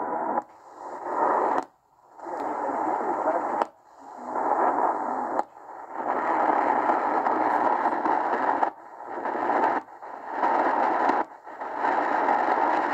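XHDATA D-808 portable radio tuned across the medium-wave (AM) band, giving a steady hiss of static between stations. The static drops out briefly about seven times as the receiver steps from frequency to frequency.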